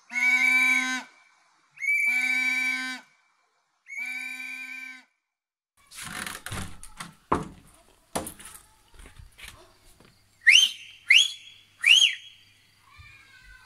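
Three long, steady whistle-like blasts of about a second each. They are followed by a few seconds of scattered knocks and clatter, then three short rising whistles near the end.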